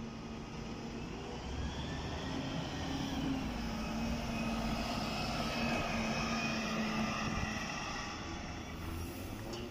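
Articulated city bus driving past, its engine running with a whine that rises in pitch and then holds steady, loudest as the bus goes by.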